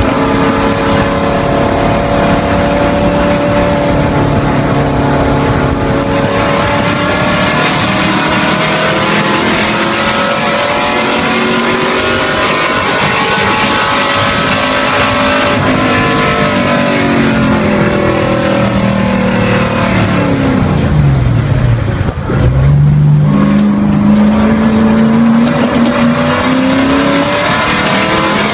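V8 race car engine heard from inside the cockpit under hard acceleration, then winding down over several seconds under braking from about 16 seconds in, with a brief dip near 22 seconds before it pulls hard again, its pitch climbing toward the end.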